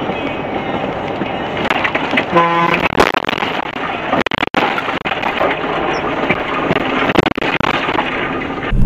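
Steady tyre and road noise of a vehicle on a wet road, heard from inside the cabin. About two and a half seconds in comes a short horn blast, followed half a second later by a sharp knock.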